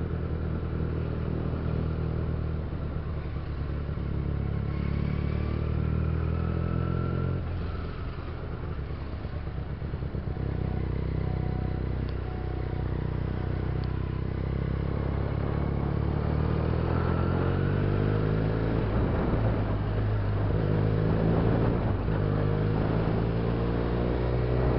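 Benelli TNT300's 300 cc parallel-twin engine running as the motorcycle rides through city traffic. It holds a steady note for the first several seconds and eases off briefly around eight seconds in. In the second half it rises in pitch again and again as it accelerates through the gears.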